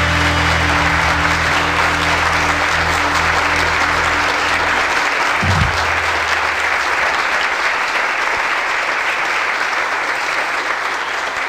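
Audience applause over the last held low chord of the show's theme music. The chord ends with a short low hit about halfway through, and the applause carries on alone.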